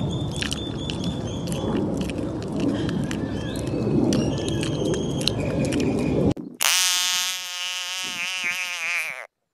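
For about six seconds, a dense noisy rustle with short high chirps and whistles over it. Then, after a brief gap, an African bullfrog held in a hand gives one long wavering call of about two and a half seconds, which stops abruptly.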